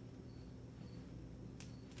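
Plastic 3×3 speed cube turned by hand: two faint clicks of its layers near the end, over a steady low hum and a faint high chirp repeating about twice a second.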